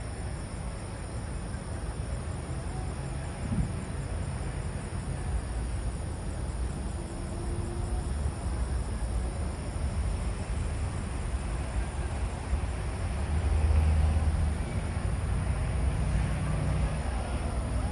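Outdoor ambience: a steady low rumble that swells briefly about three-quarters of the way through, under a continuous high insect trill.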